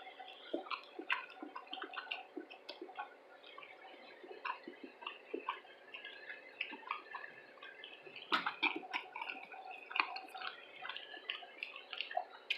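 Close-miked mouth sounds of eating: soft wet chewing, lip smacks and small irregular clicks, several a second, with a few louder smacks about eight to ten seconds in.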